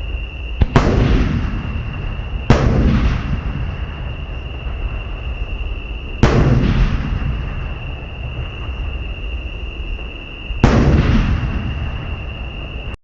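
Japanese aerial firework shells of the warimono (round-burst) type exploding: four loud booms spread over about ten seconds, each trailing off in a rumbling echo, with a steady high whine underneath.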